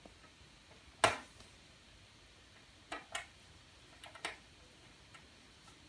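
Small metal clicks of a hex wrench and screws on a sequencer's rear expansion panel as the panel screws are undone: one sharp click about a second in, then two pairs of lighter clicks.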